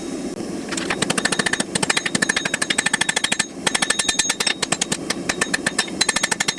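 Hammer blows on the hot steel tip of a forged knife blade over an anvil, a fast run of sharp ringing strikes in quick bursts broken by short pauses, as the point is drawn down.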